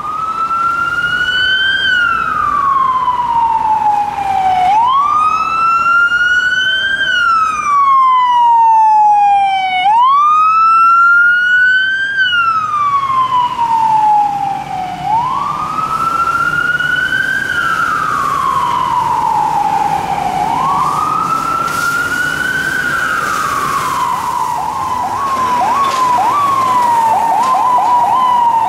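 Emergency vehicle siren on a slow wail: five cycles, each a quick rise followed by a long slide down, about five seconds apiece. Near the end it switches to a rapid series of short yelps.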